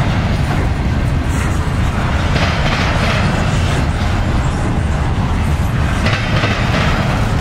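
Intermodal freight train's container cars rolling past, steel wheels running on the rails: a steady loud rumble, with wheel clatter swelling now and then.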